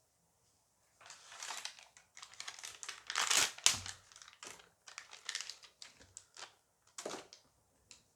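Foil Dice Masters booster pack crinkling and tearing as it is opened by hand, in irregular bursts that are loudest a little over three seconds in.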